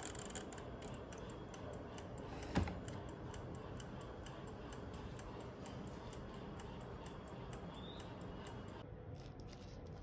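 Tefal electric food steamer's wind-up mechanical timer ticking with quick, even ticks just after its dial is set, with one sharp click about two and a half seconds in. The ticking fades out near the end.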